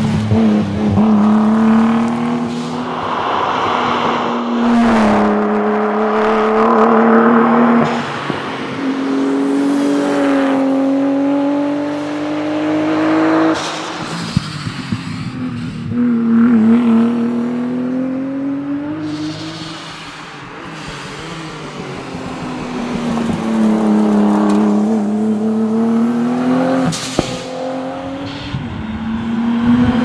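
Nissan Skyline R32 GTS-t's turbocharged 2.0-litre straight-six revving hard as the rally car drives past at speed, the pitch climbing through each gear and dropping at each shift. Several passes follow one another, with the sound fading briefly around the middle.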